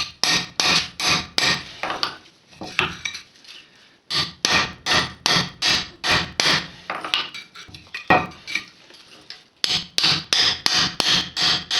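Hammer blows on a chisel driving the wheel bearing off a GAZ-24 Volga rear axle shaft, worked around the bearing in a circle. The strikes come about three a second in three runs, with two short pauses between them.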